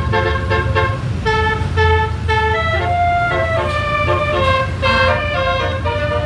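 A bus's basuri (telolet) musical air horn playing a tune: quick repeated notes in the first second, then slower notes stepping up and down in pitch, over the steady low rumble of the bus engine.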